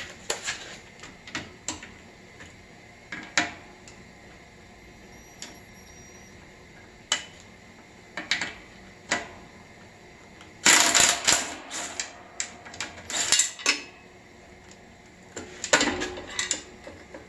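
Cordless impact driver backing out a small mounting bolt from a metal electrical box, rattling in a few short bursts around the middle, with scattered clicks and knocks of the tool and bolt against the box.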